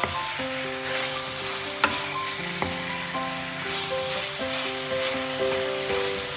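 Food sizzling as it fries in a pan, with two sharp knocks about two seconds in, under background music with a slow melody.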